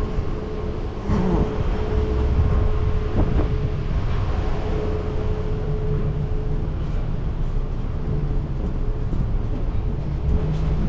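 Outdoor traffic ambience: a steady low rumble of vehicles, with a steady hum that stops a little past halfway.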